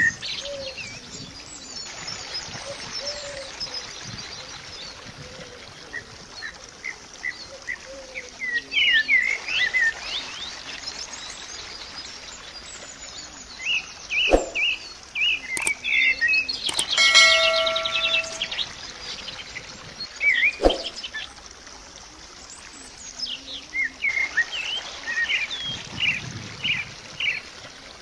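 Small birds chirping in clusters of short, quick calls over a faint outdoor hiss, with a brief buzzy tone near the middle and two sharp clicks.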